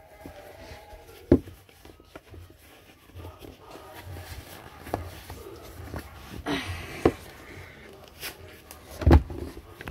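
Rustling and a few sharp knocks as a lace-up leather boot is pulled on and handled close to the microphone. The loudest knocks come about a second in, about seven seconds in and near the end.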